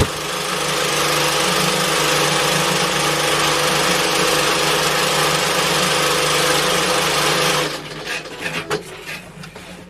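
Sewing machine running fast and steadily with an even motor hum and a fast stitching rhythm, stopping suddenly about three quarters of the way through.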